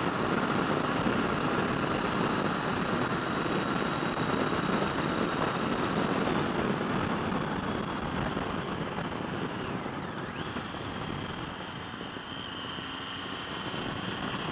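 Triumph Tiger 800 motorcycle cruising at road speed: steady wind rush over the microphone with the inline-three engine running underneath. The engine note dips briefly in pitch about ten seconds in.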